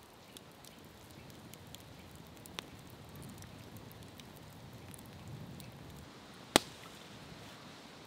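Wood campfire crackling with scattered small pops and a soft low burning rush, and one sharp, loud crack about six and a half seconds in.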